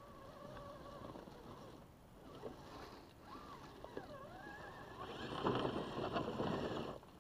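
Traxxas TRX-4 Sport RC crawler's electric motor and geared drivetrain whining, the pitch dipping and rising with the throttle as it climbs a steep dirt bank. About five seconds in, it gets louder as the tyres scrabble and spin in loose dirt and leaves under full load, then it stops.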